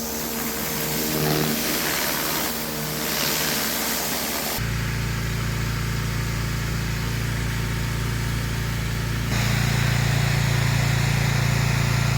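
An engine running steadily with a hiss over it, in three short stretches joined by abrupt cuts about a third and three quarters of the way through; the last stretch has the strongest low hum.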